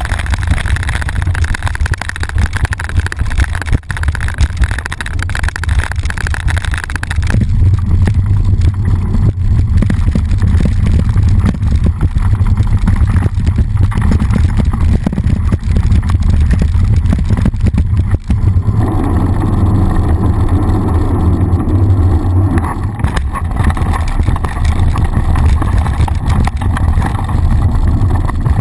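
Wind buffeting and rumble on a GoPro mounted on a mountain bike riding down a dirt flow track, with the bike rattling and clattering over the bumps of the trail. The character of the noise changes abruptly about a quarter of the way in and again past halfway, as the view switches between camera mounts.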